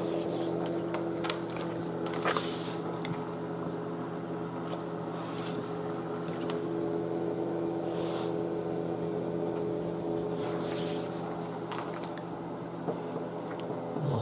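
An American Bully eating raw chicken hearts from a metal pan: wet chewing, licking and smacking at irregular moments, ending with lip-licking. A steady low hum runs underneath.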